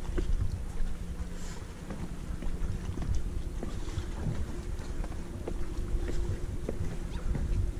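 Wind buffeting the camera microphone in a steady low rumble, with a faint steady hum underneath and a few small ticks.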